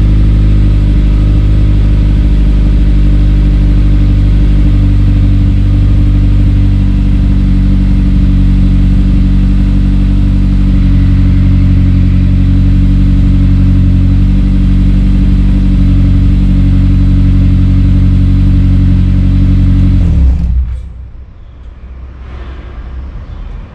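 Honda S2000's four-cylinder VTEC engine idling steadily through an Amuse R1 Titan exhaust with a TODA header and decat pipe. The engine sound stops abruptly about twenty seconds in, leaving a much fainter low rumble.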